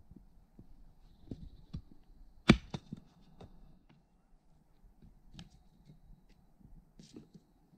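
Hatchet chopping dead branches: one sharp chop about two and a half seconds in, among lighter scattered knocks of wood.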